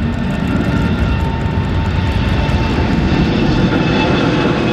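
Jet airliner's engines running: a steady rushing noise with thin high whining tones over it, growing slightly louder.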